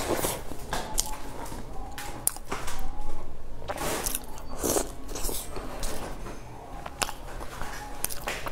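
Close-up eating: bites into a flaky chestnut pastry dipped in milk, with chewing and crisp crunches of the crust at irregular intervals, the loudest about three seconds in.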